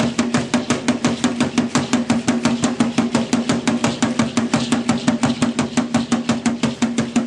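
Upright huehuetl drums beaten in a fast, even rhythm for a traditional dance, with a steady low tone held beneath the beat.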